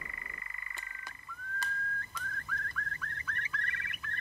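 European nightjar churring, a steady rapid purring trill that stops about a second in, with a few sharp clicks. Then a Eurasian curlew's spring song starts: rising whistled notes that come faster and faster and run into a bubbling trill.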